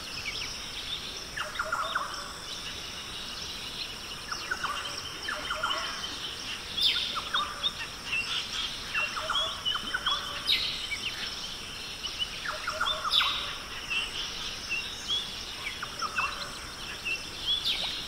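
Forest bird chorus: many short chirps and calls every second or two, over a steady high-pitched drone.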